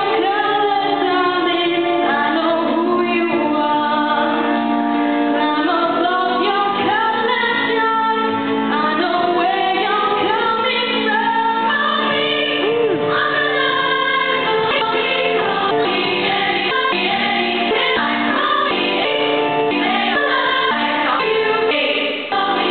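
A female soloist sings into a handheld microphone with a women's choir singing behind her, in held and gliding notes. The music dips briefly right at the end.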